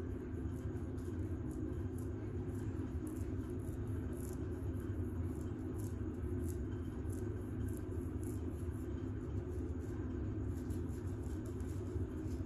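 Medium-length fingernails scratching through curly hair on the scalp: quick, light, irregular scratches, a few a second, over a steady low hum.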